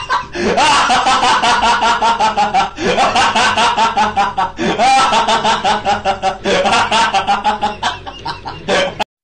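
High-pitched laughter in rapid 'ha-ha' pulses, coming in bouts about every two seconds, each opening with a rising squeal. It cuts off suddenly near the end.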